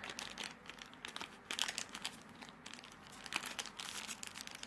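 A small bag crinkling and rustling in the hands as it is opened and the nose plugs are taken out, in irregular crackly bursts.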